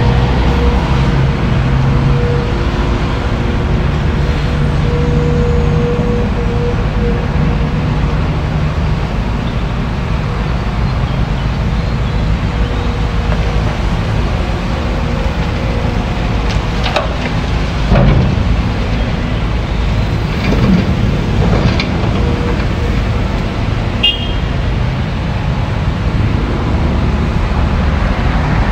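Diesel engine of a tracked excavator running steadily, its low hum rising and falling a little as it works, with a few knocks in the second half, the loudest about eighteen seconds in.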